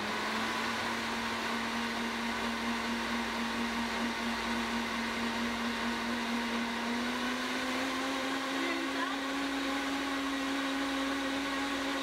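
SMEG countertop blender running steadily, blending milk and berries into a smoothie. Its motor hum creeps slowly higher in pitch over the run.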